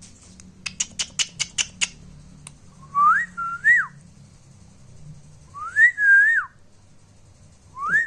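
A person whistling a short phrase three times to a rose-ringed parakeet as a cue for it to copy, each phrase rising, dipping and rising again before falling away. Before the whistles comes a quick run of about eight sharp clicks.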